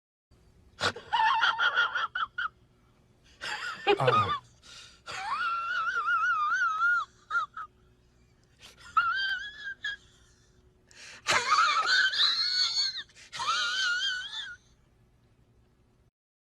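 Meme sound effect of a high-pitched wheezing voice, in about six bursts whose pitch wavers up and down, over a faint steady hum.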